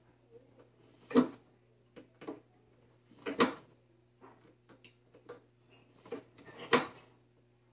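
Utility knife scoring and cutting the vinyl nailing tabs off a plastic replacement window frame: a series of short scraping cuts, with three louder strokes about a second in, after about three and a half seconds, and near the end, and lighter scrapes and taps between.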